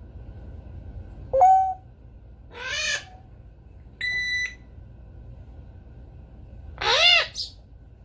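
African grey parrot making a series of whistles and calls. There is a short whistle about a second and a half in, a rising-and-falling call, a flat beep-like tone about four seconds in, and a loud arching call near the end, ending in a quick high squeak.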